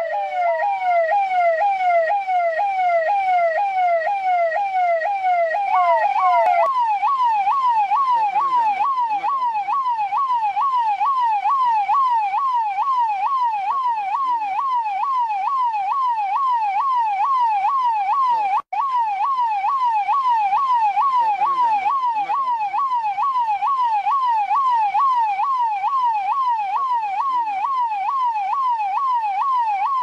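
Indian police vehicle's electronic siren in a fast yelp, its pitch sweeping rapidly up and down about twice a second. About six seconds in it steps up to a higher pitch, and it cuts out for an instant a little past the middle.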